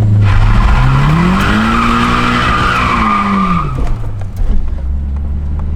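Nissan 180SX with an SR20DET turbo engine being clutch-kicked: the revs climb and hold while the tyres squeal and skid for about three and a half seconds, then the revs drop and the tyre noise stops, leaving the engine running low.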